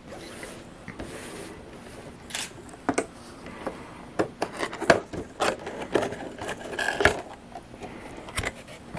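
A cardboard collectible-figure box being handled and opened by hand: irregular scraping, rubbing and sharp clicks of cardboard and plastic packaging. They begin sparsely and come thickest about halfway through.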